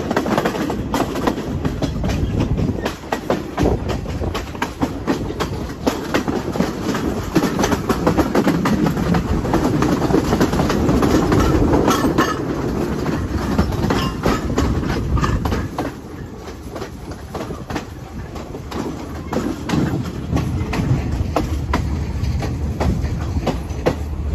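Passenger train running along the line, heard from an open carriage window: a steady rumble of the wheels on the rails with many sharp clicks as they cross rail joints. It gets a little quieter about two-thirds of the way through.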